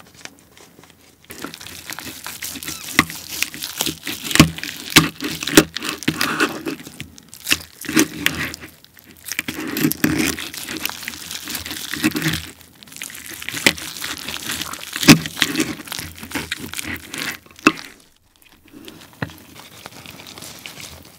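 Knife and fork cutting through a roast German pork hock (Schweinshaxe) with a crisp, hard-roasted skin: crackling and crunching with many sharp cracks, in several passes with short pauses between them. It is quieter near the end, as a piece is pulled off by hand.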